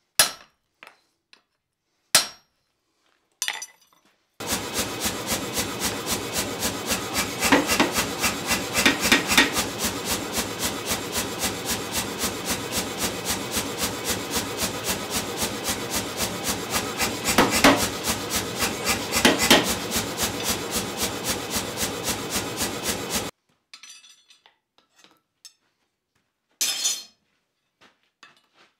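Power hammer forging a hot steel block: a fast, even run of blows lasting about nineteen seconds, with two clusters of harder blows partway through. Before it starts there are a few single hand-hammer strikes on the anvil, and there is another strike near the end.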